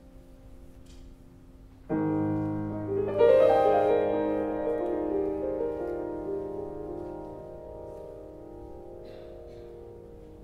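Grand piano played: soft held notes, then a loud chord struck about two seconds in, followed a second later by a quick rise into higher notes. The chord is then left to ring and slowly die away.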